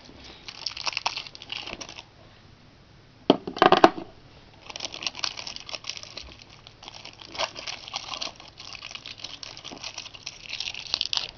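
Plastic packaging crinkling and crackling as it is picked at by hand to free AA batteries, with a louder crunch a little over three seconds in.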